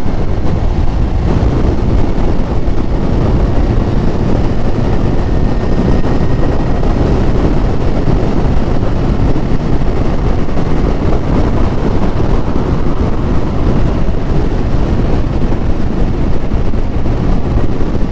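Yamaha YZF1000R Thunderace motorcycle on the move: a steady rush of wind over the microphone with the bike's inline-four engine running underneath, holding an even speed.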